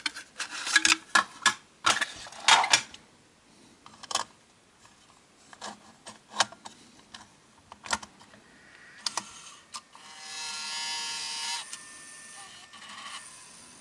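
Plastic clicks and rustling as a Video8 cassette is put into a Sony Video Walkman's tape mechanism and the cassette compartment is pressed shut. About ten seconds in, the mechanism's motor runs with a steady whine for under two seconds as the tape loads, then a fainter whirr carries on.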